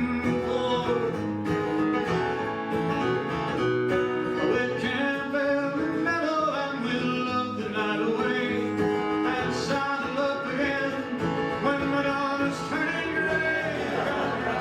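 Acoustic guitar accompanying a man singing a Western song.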